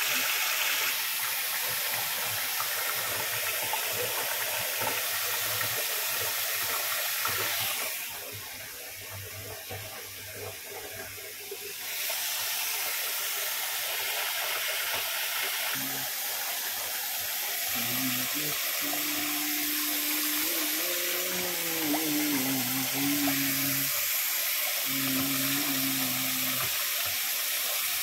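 A kitchen tap spraying into a water-filled stainless steel sink while a rubber plunger is pumped up and down on the drain with quick repeated strokes and splashing, to clear a blocked drain. A low wavering hum comes and goes over the second half.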